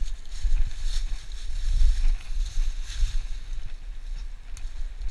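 Footsteps crunching and scuffing through dry leaf litter and twigs down a slope, at an uneven pace, over a steady low rumble on the microphone.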